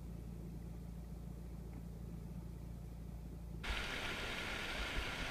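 A steady low hum for about three and a half seconds, then an abrupt switch to the even rushing noise of a fast-flowing river.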